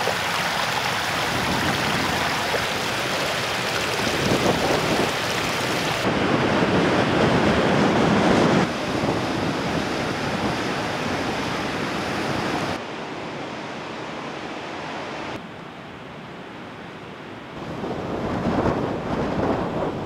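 A small creek running and splashing over rocks. After an abrupt change about six seconds in, ocean surf is breaking on a rocky shore. The level drops and rises suddenly several times in the second half.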